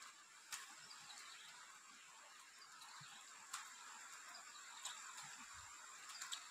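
Near silence: a faint steady high-pitched tone over a light hiss, with a few soft clicks of eggshell as boiled eggs are peeled by hand.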